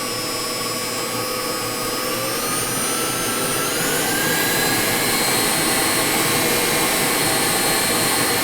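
KitchenAid bowl-lift stand mixer's motor and gearbox running with a whine that rises in pitch over the first few seconds as the speed goes up, then holds steady.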